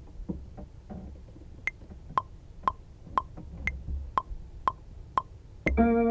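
Metronome count-in clicking at two beats a second, with a higher-pitched click on every fourth beat. Just before the end a plucked-guitar beat starts, much louder.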